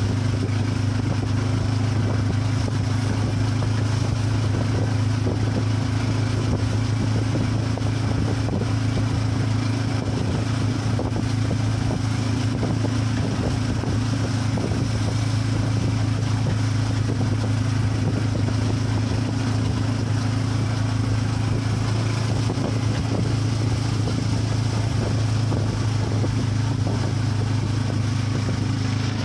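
Motorcycle engine of a motorized tricycle running at a steady cruise, a constant low hum, with wind and road noise, heard from the passenger's seat of the sidecar.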